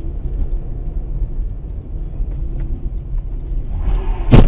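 Low rumble of a vehicle on the move, heard through a dash-cam's microphone. One loud, sharp bang comes near the end and is the loudest sound.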